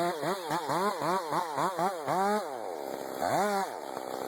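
Two-stroke chainsaw engine revved in quick throttle blips, about four a second, then given one longer rev before settling back.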